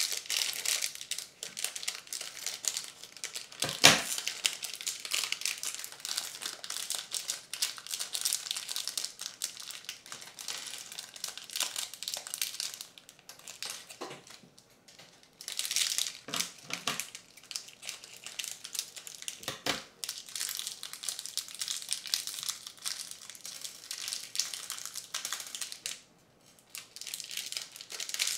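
Crinkling and rustling of small clear plastic parts bags being handled and opened, broken by a few sharp knocks, the loudest about four seconds in.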